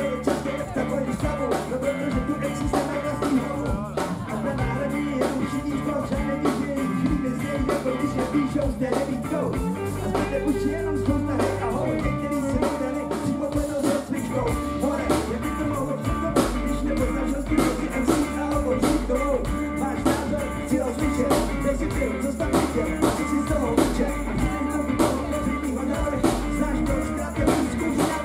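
Live band playing with a lead vocalist singing into a microphone, electric guitar and drum kit.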